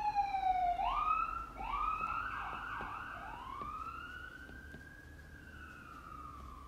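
A siren wailing: a falling tone, then a few quick rising-and-falling sweeps about a second in, then one long slow rise and fall that grows fainter.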